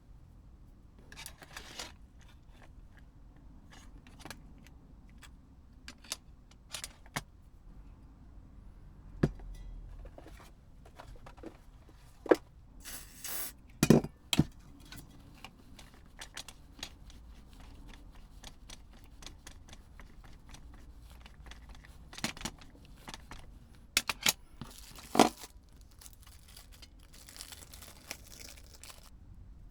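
Hands working on a Blu-ray remote control: scattered small clicks, taps and scraping, with a few sharper knocks around the middle and again near the end.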